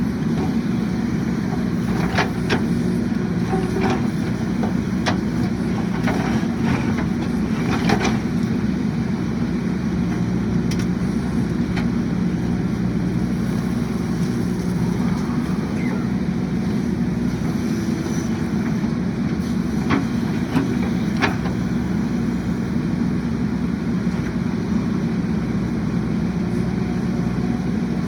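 A JCB 3DX backhoe loader's diesel engine runs steadily at a constant pitch. Scattered sharp clanks and knocks sound over it, several in the first eight seconds and a couple more around twenty seconds in.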